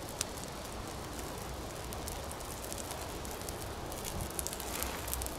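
Birch bark torch burning, its flames crackling with frequent small pops over a steady low rush.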